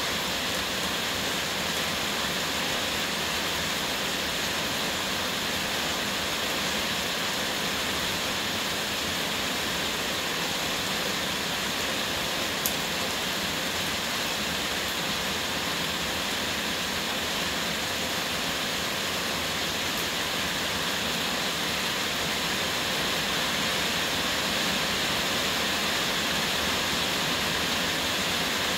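Heavy rain pouring steadily, an even hiss that does not let up, with a single sharp click a little before halfway through.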